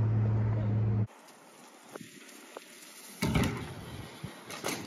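A steady low mechanical hum that cuts off suddenly about a second in, then faint outdoor background with a couple of light ticks and a brief rustle about three seconds in.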